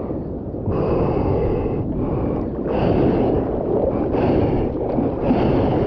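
Surfer paddling prone on a surfboard: arm strokes splash through the water about once a second over a steady rush of water along the board, with wind rumbling on the microphone.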